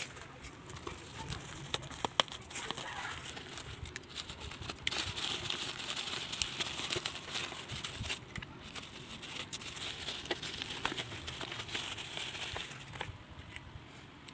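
Thin black plastic bag crinkling and rustling with many small crackles as it is handled and opened by hand, loudest through the middle and quieter near the end.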